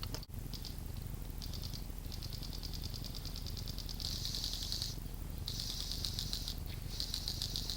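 Airsoft guns firing rapid full-auto bursts, a fast rattling string of clicks, several bursts in a row with the loudest in the second half.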